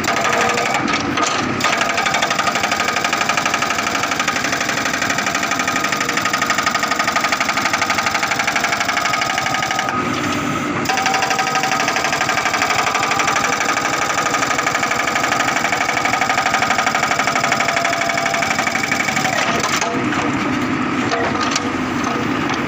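Hydraulic rock breaker on a Manitou MBL 745 HT S backhoe loader hammering on a boulder: a rapid, even pounding over the running diesel engine. The hammering breaks off briefly about ten seconds in.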